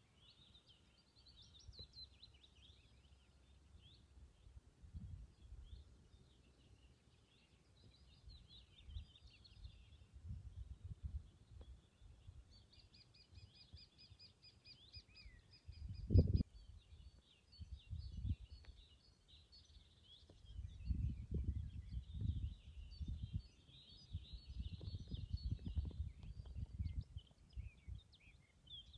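Several small birds singing and chirping, including a fast, even trill of about three seconds near the middle. Beneath them come irregular low rumbles and bumps on the microphone, with one sharp thump a little past halfway.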